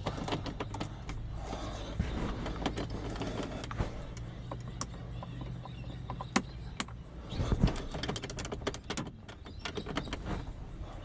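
Irregular small metal clicks and scrapes of a flat key being wiggled and twisted in an old, worn car lock barrel to dip-stick it open, over a low steady hum.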